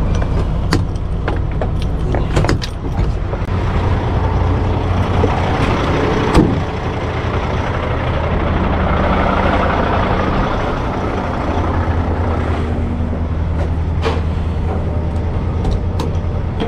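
Heavy truck's engine running steadily with a low hum, with scattered clicks and knocks and a sharper knock about six seconds in.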